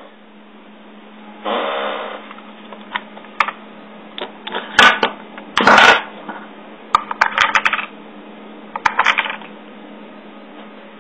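Yongnuo YN568EX speedlite's zoom motor buzzing and clicking in several short, irregular bursts, the sign of its zoom head being stuck.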